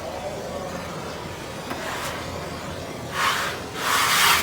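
Wallpaper rustling: two short swishes about three and four seconds in.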